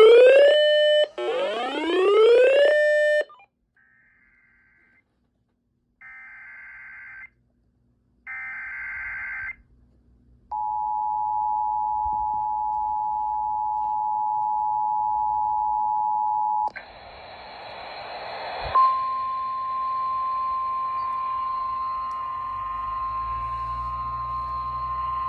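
Emergency Alert System tone sequence: two rising electronic sweeps, then three short bursts of data tones (the SAME header), then the steady two-tone EAS attention signal for about six seconds. It switches to radio static with a sharp click, and a single steady alert tone sounds through the static.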